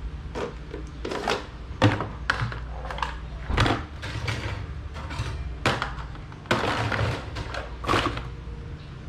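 Irregular clicks and knocks of an electric fan's plastic and metal parts being handled and worked apart by hand, over a steady low hum.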